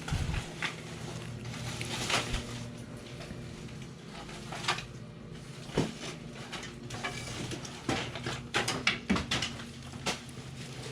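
Irregular knocks, clicks and light clattering of objects being handled and moved while rummaging through junk, over a low steady hum.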